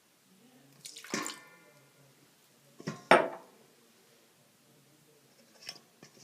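Boric acid solution being dripped from a bottle into the glue mixture in a bowl: two short wet clinks about two seconds apart, the first with a brief ring and the second louder, then a faint tick near the end.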